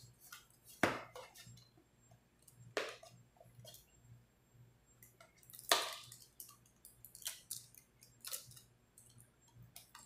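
Small retail packaging box being handled and opened by hand: scattered sharp crackles and taps from the box and its flap, the loudest about halfway through.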